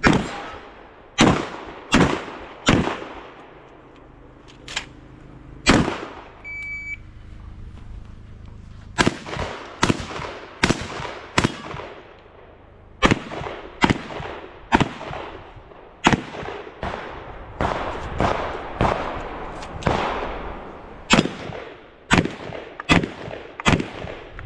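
Shotgun shots in a dynamic IPSC shotgun stage: a few spaced shots, then a short electronic shot-timer beep about six and a half seconds in, followed by a long string of rapid shots, roughly one a second or faster, as the course of fire is shot.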